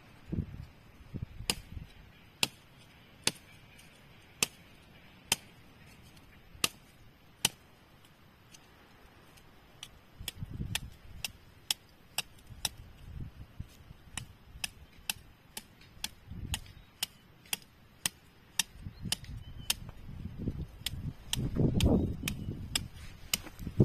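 Machete blade striking a thin wooden stick in a run of sharp chops, about one a second at first and then quicker, around two a second, in the second half. Low rumbling handling noise swells up now and then, loudest near the end.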